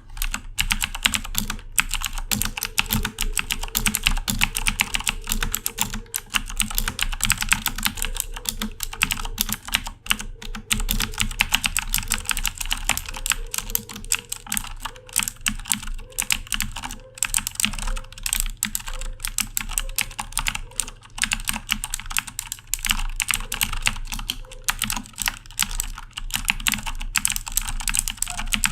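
Corsair K70 mechanical keyboard with clicky Cherry MX Blue switches being typed on continuously and fast, a dense stream of sharp key clicks.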